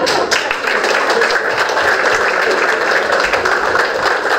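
Audience applause: dense, steady clapping from a roomful of people, breaking out sharply at the start.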